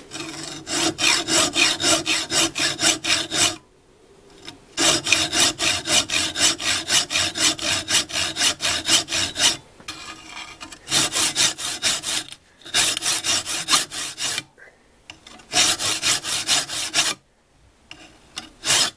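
A hand saw cutting through an electronic EGR valve in quick back-and-forth strokes. The strokes come in runs of a few seconds, with short pauses between them, and a faint ringing note sounds under them.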